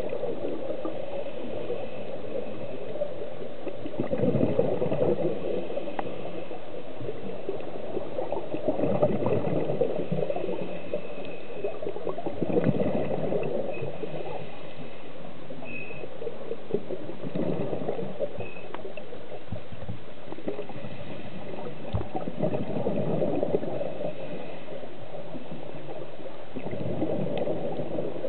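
Scuba diver breathing through a regulator underwater: a gurgling burst of exhaled bubbles about every four to five seconds, six in all, over a steady underwater hiss.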